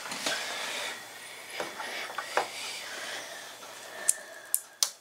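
Handling noise as hands rub and scrape around a tube radio's chassis, then three sharp clicks a little after four seconds in as its front knobs are turned.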